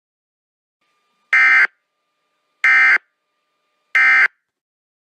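Emergency Alert System end-of-message signal: three short, identical bursts of SAME digital data tones, each about a third of a second long and a little over a second apart, marking the end of the alert.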